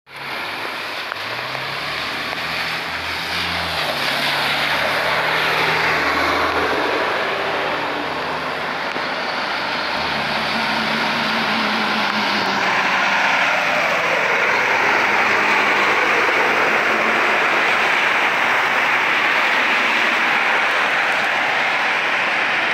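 Volvo heavy tow truck's diesel engine pulling a towed articulated New Flyer D60LF bus, its pitch climbing in the first few seconds and then holding steady under load. Over it runs a loud hiss of tyres on the wet road that swells as the rig passes.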